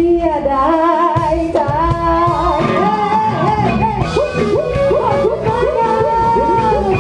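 Live band playing, with a woman singing long, wavering held notes over it.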